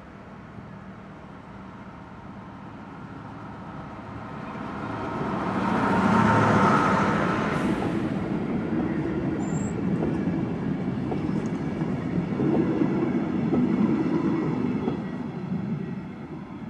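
ÖBB class 2062 diesel locomotive approaching and passing with its engine running, growing louder to a peak about six seconds in. Then the passenger coaches roll by, their wheels clicking over the rail joints, and the sound fades near the end as the train moves away.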